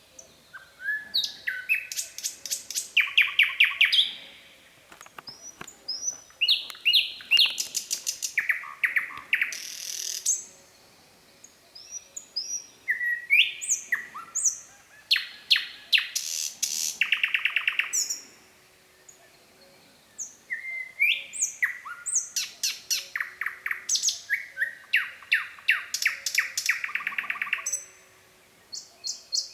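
Nightingale singing: phrases of fast repeated notes and trills mixed with slurred whistles, each phrase a few seconds long with pauses of a second or two between them.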